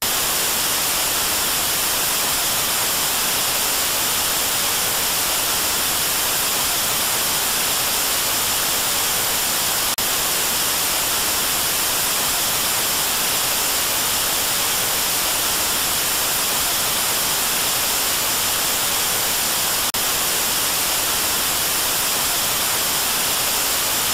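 Analog television static: a loud, steady hiss of white noise from a set receiving no signal after the station has gone off the air. It starts abruptly and holds even, brightest in the upper range.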